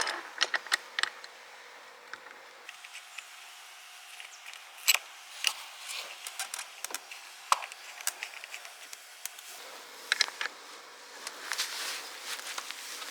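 Scattered clicks and knocks as pedals are fitted to a mountain bike's crank arms, with a few sharper knocks in the middle.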